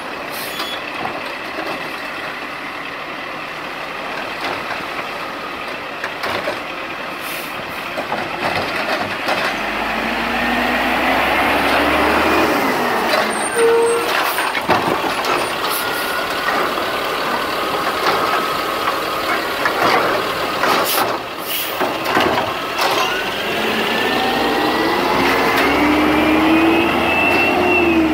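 Garbage truck at work: its engine revs up twice, about ten seconds in and again near the end, each time with a rising whine, among clanks and short air-brake hisses.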